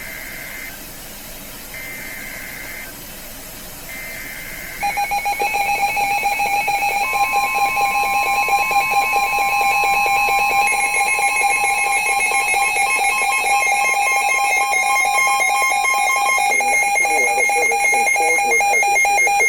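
Emergency Alert System alert on a weather radio: three short bursts of buzzing SAME digital header data, then, from about five seconds in, a loud steady alert tone with pulsing higher-pitched alarm beeps over it. It is the opening of a severe thunderstorm warning.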